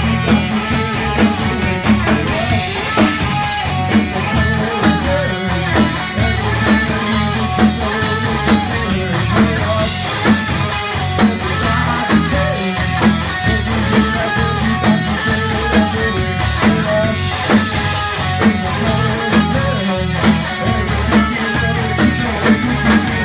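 Live rock band playing: guitar over a drum kit keeping a steady beat.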